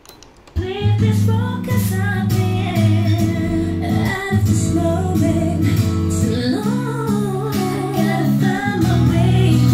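A button click on the cassette deck, then a song starts abruptly about half a second in: a tape playing back through speakers, with a woman singing over guitar and a steady bass line.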